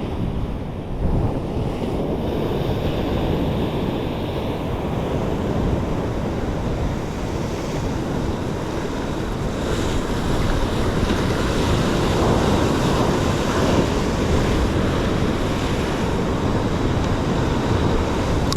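Sea surging and washing over a rocky shore, with wind buffeting the microphone. The wash grows somewhat louder and hissier from about halfway through.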